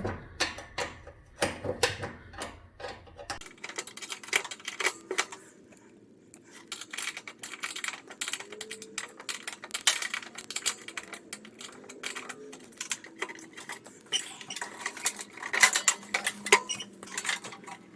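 Hand tools and metal parts clicking and clattering as a riding mower's battery box is unbolted and pulled out to reach the starter solenoid. The clicks come irregularly, in busier spells near the start, around the middle and near the end.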